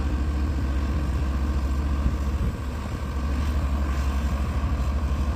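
Excavator diesel engine running steadily with a deep hum while driving a hydraulic auger for bored piling; it eases off briefly about two and a half seconds in, then picks up again.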